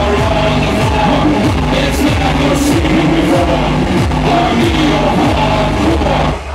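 Hardcore techno played loud over a festival sound system: a distorted kick drum at about three beats a second under a melodic synth line. The beat drops out right at the end.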